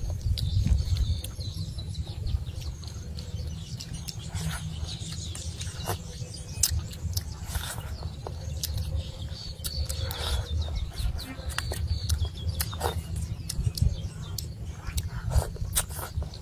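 Close-up eating sounds from fish-head soup: wet chewing and lip smacking, with many short clicks of a spoon working the fish flesh against the metal tray, over a steady low rumble.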